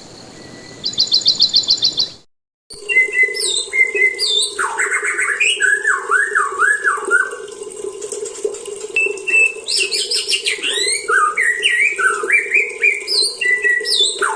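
Juvenile white-rumped shama singing immature song, learning its 'riwik' calls: varied short whistles, wavering slurred notes and chatter over a steady low hum. In the first two seconds, before a short break, there is a fast, even trill of high notes.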